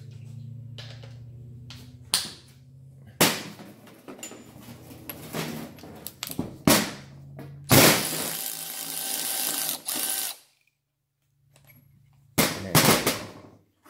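Cordless power ratchet running for about two and a half seconds as it backs a plug out of a cast hydraulic pump cover, opening up the pump's flow-regulating valve bore. Sharp metallic knocks of parts and tools set down on a steel workbench come before it and again near the end.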